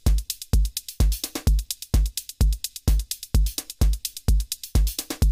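Electronic drum pattern playing back in a loop from a Native Instruments Maschine drum kit: a steady kick about twice a second with hi-hats ticking in between.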